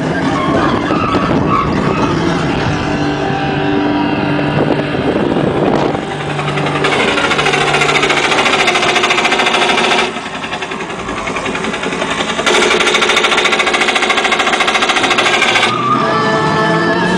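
Roller coaster ride noise: a loud, even mechanical rattle that comes in two stretches of about three seconds each, starting and stopping abruptly, with lower pitched ride and theme audio between them.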